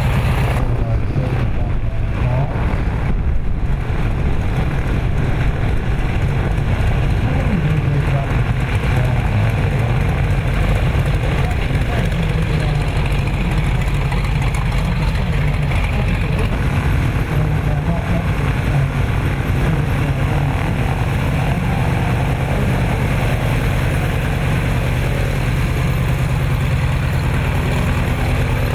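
Piston engines and propellers of vintage high-wing light aircraft running steadily at taxi power as the planes roll past one after another.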